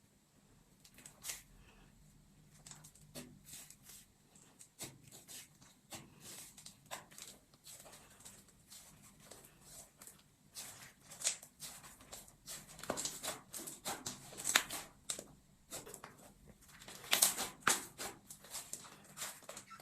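Hands playing with slime: irregular sticky clicks, pops and crackles as it is squished, pressed and stretched. They are sparse at first and come thicker and louder in the second half, loudest at a few moments near the end.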